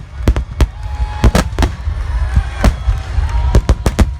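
Phoenix fireworks barrage: a rapid run of shells bursting, sharp bangs several times a second over a continuous deep rumble.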